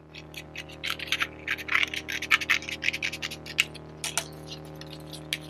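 Scissors cutting through thin card: an irregular run of short, crisp snips and scrapes as the blades close and the card shifts against them.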